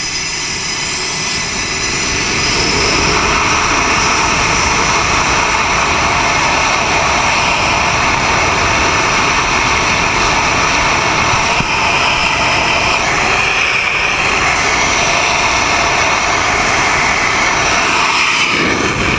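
F/A-18's twin jet engines on a carrier catapult, rising to full power about two seconds in and holding a loud, steady roar. Near the end the catapult fires and the jet is launched.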